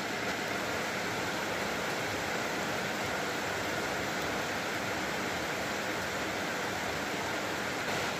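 Heavy thunderstorm rain pouring down: a steady, even hiss of the downpour with no thunder heard.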